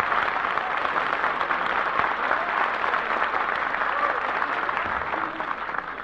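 Studio audience applauding, dying down near the end.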